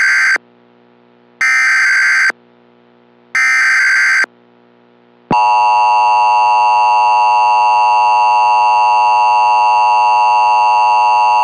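Emergency Alert System broadcast tones: three screeching data bursts of about a second each (the SAME header). About five seconds in, the steady, harsh two-tone attention signal begins and holds.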